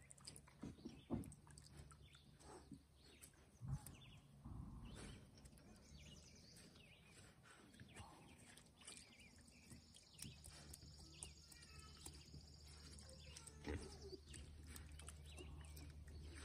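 Piglets moving and rooting in wet mud close by: faint scattered thuds, squelches and snuffles, with an occasional soft grunt and a few louder knocks.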